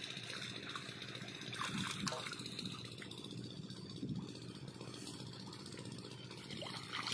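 Diesel water-pump engine running steadily, with a few splashes and sloshes of water as the pump's suction hose is moved about in a shallow puddle.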